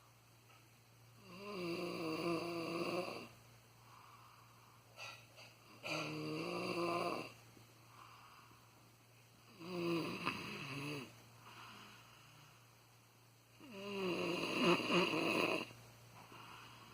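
A person snoring: four long snores about four seconds apart, each lasting one to two seconds, with quiet pauses between.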